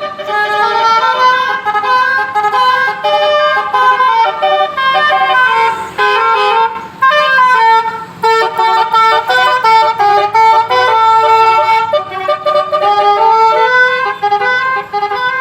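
Bus's basuri telolet horn playing a melody: loud held notes that step up and down in pitch, with brief breaks about six and seven seconds in.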